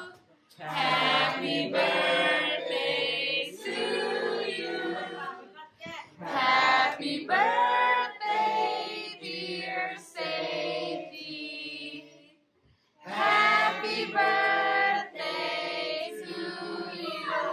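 Voices singing together in a choral style, in phrases with short breaks about half a second in, around six seconds in and around twelve seconds in.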